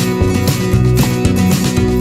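Background music: an acoustic guitar-led, country-style track with a steady beat.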